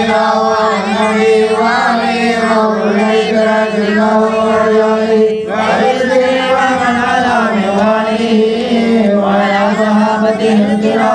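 Male voices chanting Arabic Mawlid verses in praise of the Prophet into a microphone, in a long drawn-out melodic line over a steadily held low note. The melody dips and rises again about halfway through.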